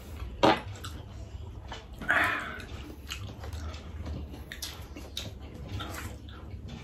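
Close chewing and mouth sounds of people eating pizza, with many small wet clicks. There is a sharp tap about half a second in and a louder brief noise about two seconds in.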